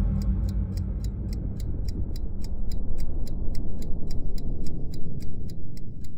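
Steady clock-like ticking, about four ticks a second, over a low rumble that slowly fades, left after the song's music cuts out: the ticking-bomb effect ending the soundtrack.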